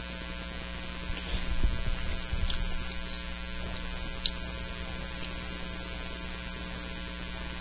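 Steady electrical mains hum, with a few low bumps a second or two in and some short, sharp clicks in the middle, the loudest about four seconds in.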